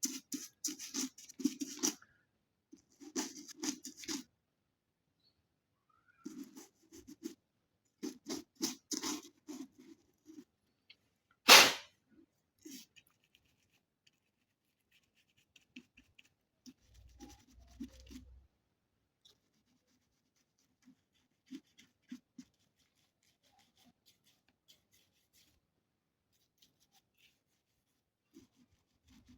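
Brushing and handling sounds of a soft brush cleaning dust from the inside of a Bluetooth speaker, in scattered short strokes. There is one short, loud burst of breath a little over a third of the way in, followed by faint scattered clicks and rustles.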